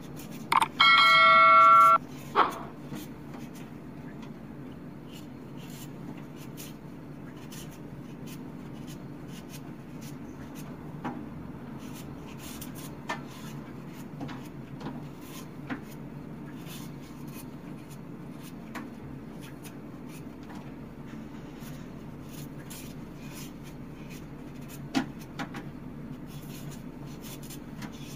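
A bright bell-like chime rings briefly about a second in, from an animated subscribe-button sound effect. After it come a steady low hum and scattered faint knife scrapes and clicks as a sweet potato is peeled by hand over a metal sink.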